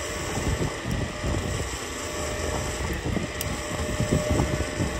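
Wind buffeting the microphone in uneven gusts over the steady rush of water and engine noise of a boat under way at sea.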